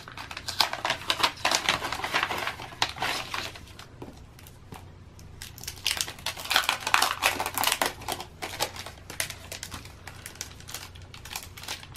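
Paper and cardstock crinkling and rustling as a folded cardstock sticker-kit folder is opened and sheets of planner stickers are slid out and handled. The rustling comes in two busy spells, the first few seconds and again around six to eight seconds in, with lighter handling between.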